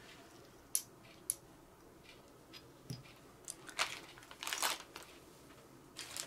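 Small clear plastic parts bag crinkling as it is handled, in short bursts in the second half, after two sharp clicks about a second in.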